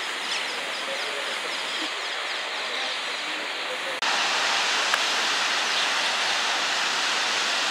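Outdoor ambience: a steady hiss with faint high chirping, then an abrupt cut about four seconds in to a louder, steady rushing noise.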